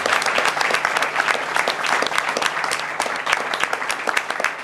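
Audience applauding, many hands clapping steadily. It eases off slightly near the end.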